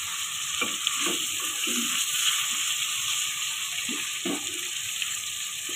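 Raw chicken pieces sizzling steadily in hot oil with browned onions in a steel pot, turned now and then with a wooden spoon, at the stage where the chicken is fried in its own released water until it turns white.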